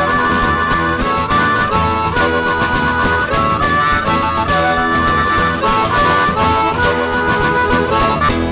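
Background music: a harmonica playing a lively melody over a steady rhythmic accompaniment.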